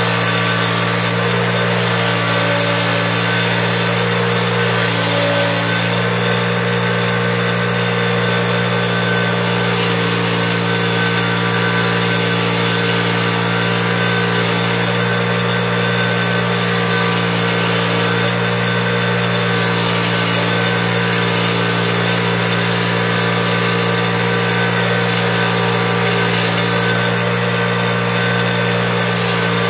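Bench grinder motor running with a steady hum while a valve from a Honda F23A1 cylinder head is held against its wheel to scrub off carbon deposits, the grinding hiss swelling and fading as the valve is pressed on and turned.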